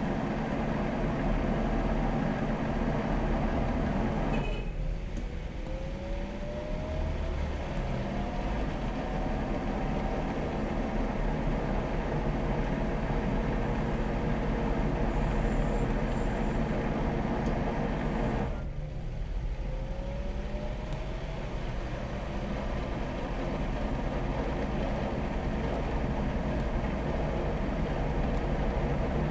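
DAB E.sybox booster pump running with a steady low hum. Twice the sound dips briefly and a short rising whine follows.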